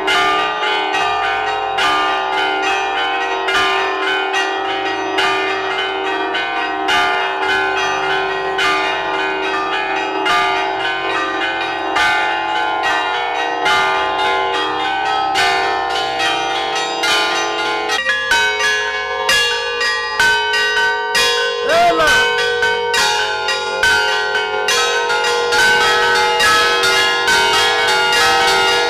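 Three church bells in a bell tower rung by hand with ropes, struck rapidly and continuously in a peal. Their tones ring on over one another, and the mix of bells shifts about two-thirds of the way through.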